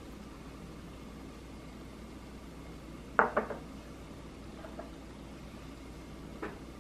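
Ceramic bowls and glassware clinking on a table: a sharp double clink about three seconds in, a couple of faint taps, and one more clink near the end.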